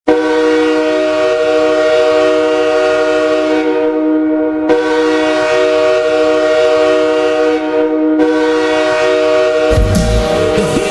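Hockey goal horn sounding a chord of several tones in one long, steady blast lasting nearly ten seconds. The goal song's music starts near the end.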